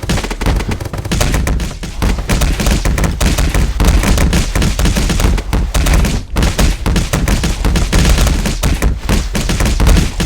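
Sustained rapid gunfire, the shots packed so close they run together, with brief lulls about two and six seconds in.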